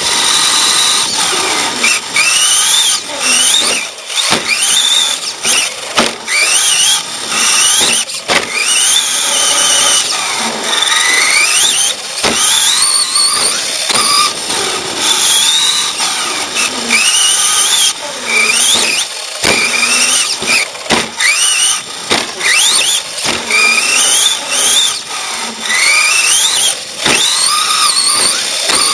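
Radio-controlled truck's electric motor whining, its pitch rising with each burst of throttle and dropping off into the corners, over and over, with scattered knocks from the truck hitting bumps and the track edge.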